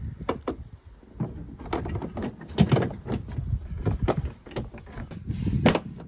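Plastic liftgate trim panel being fitted and pressed into place on a Toyota RAV4: irregular clicks and knocks, several a second, over handling and rubbing noise.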